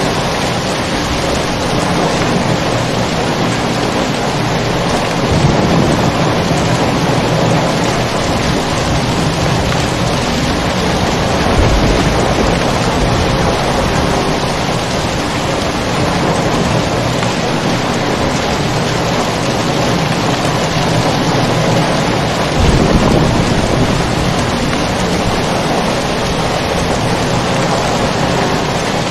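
Steady heavy rain, with low rolls of thunder three times: a few seconds in, near the middle, and about three-quarters through.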